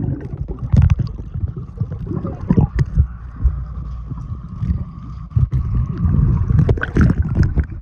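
Wave pool water sloshing and splashing, with wind rumbling on the microphone.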